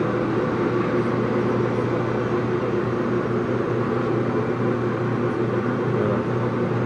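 Steady hum of running machinery: a low drone with several steady tones over it, unchanging in level or pitch.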